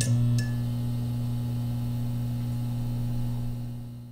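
Electronic logo-intro sound effect: a steady low synthesized hum with a couple of sharp glitchy clicks at the start, fading away near the end.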